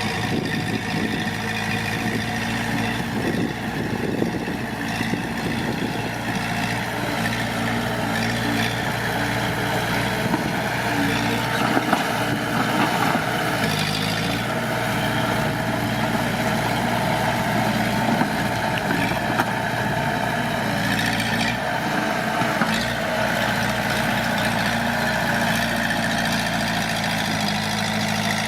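Heavy diesel engine of earthmoving machinery running steadily, its note shifting a few times with load.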